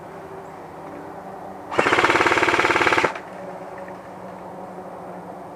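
Airsoft gun firing one rapid full-auto burst lasting just over a second, starting a little under two seconds in.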